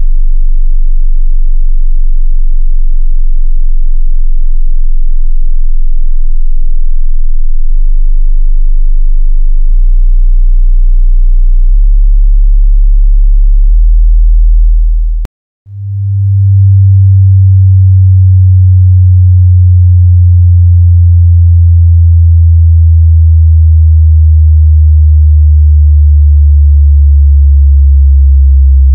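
Very low sine-wave test tones for a subwoofer crawl, stepping up in pitch every couple of seconds. About halfway through comes a click and a brief silence. Then the crossover test starts: two low tones at once, around 100 Hz, broken twice by short dips.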